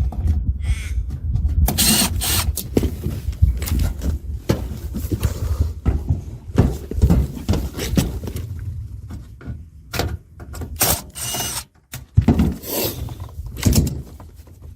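Irregular knocks, clicks and rattles of parts and tools being handled during work on an air conditioner unit, over a steady low hum.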